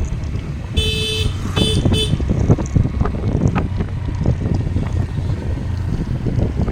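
Wind noise on the microphone over a steady low rumble of riding in traffic. About a second in, a vehicle horn honks three times: one longer toot, then two short ones.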